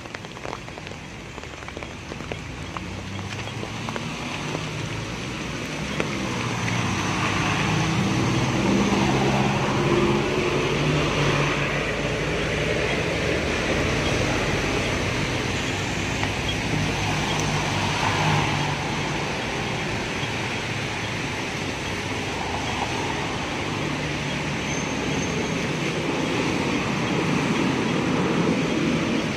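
Traffic on a rain-soaked street: vehicle engines running and tyres hissing on the wet road as vehicles pass, a minibus among them, with rain falling. The traffic grows louder about six seconds in.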